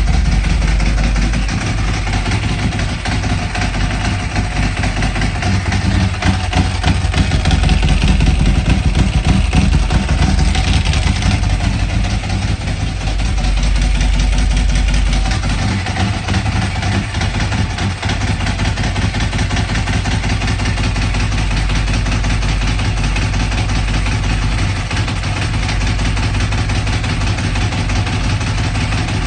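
Ducati Multistrada motorcycle engine with a full exhaust, idling loud and angry just after a cold start on a very cold day, with small swells in level.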